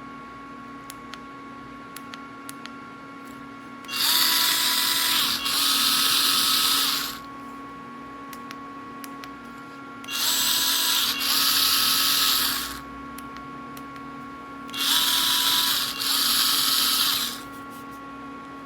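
A 4V cordless stick screwdriver running free three times, about three seconds each, with a motor-and-gear whine; each run breaks briefly partway and resumes at a slightly higher pitch. A few light clicks come before the first run.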